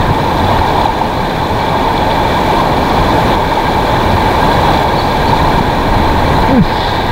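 River rapids: fast, shallow water rushing steadily and loudly.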